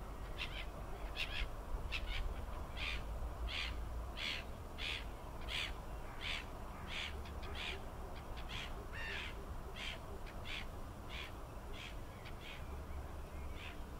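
A bird repeating short, raspy calls, about one every 0.7 seconds, over a low rumble of wind.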